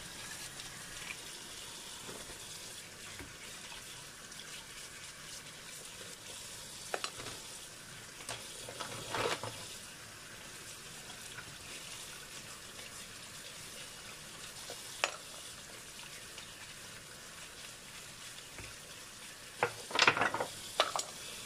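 Kitchen tap running steadily over mussels being rinsed and scrubbed in a colander. Now and then come sharp clicks of shells knocking together and dropping into a glass bowl, with the loudest clatter near the end.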